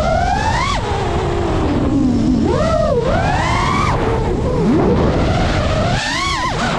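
Brushless motors of a GEPRC Mark5 FPV quadcopter whining under a rush of air. The pitch swoops up and down with the throttle: a sharp rise and drop under a second in, another around three seconds, a climb near five seconds, and a quick high punch near the end.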